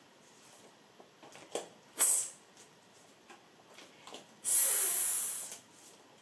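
A woman's voice making unvoiced phonics consonant sounds: a short breathy sound about two seconds in, then a long drawn-out hiss lasting about a second.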